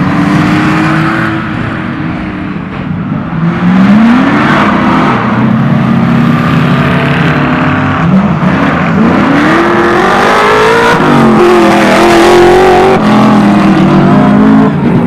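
Rally car engine accelerating hard through the gears, loud throughout. Its pitch climbs, drops at each shift and climbs again several times. About eleven seconds in it drops and then holds high.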